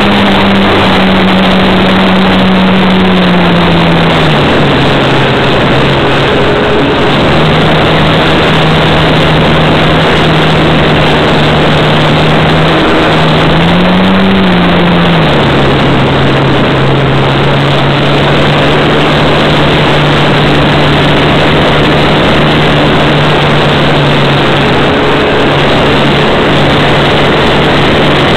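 RC model Cessna's motor and propeller heard from its onboard camera, buried in a heavy rush of wind noise. The motor's tone drops a step about four seconds in as the throttle is eased back, rises briefly around the middle, then holds at the lower pitch.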